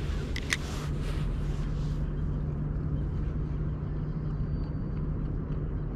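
A steady low engine hum. Over it, a hissing noise and one sharp click in the first two seconds.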